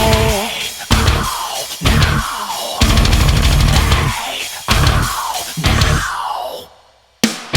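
Loud heavy rock music: a run of accented hits from the drums and band, roughly one a second, each dying away, then a brief silence near the end before the full band comes back in.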